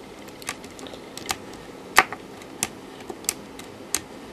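Toggle switch used as a single-step CPU clock being flicked by hand, a steady series of sharp clicks about three every two seconds, the one about two seconds in the loudest. Each flick steps the Z80 processor one clock cycle.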